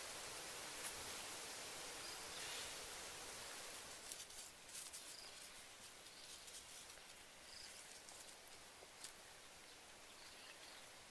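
Quiet outdoor ambience with faint, irregular light taps and clicks, beginning about four seconds in, as ingredients are dropped into a wooden mortar and the wooden pestle shifts against its sides. A few faint, short high chirps sound in the background.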